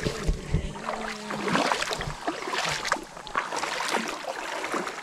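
River water splashing and flowing, with many small sharp splashes.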